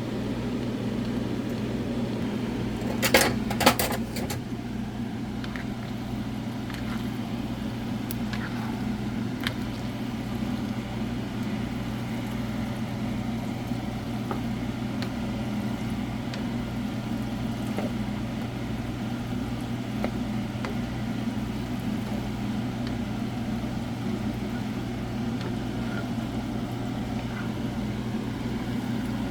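Steady low mechanical hum of a running motor, with a short clatter of sharp knocks about three seconds in.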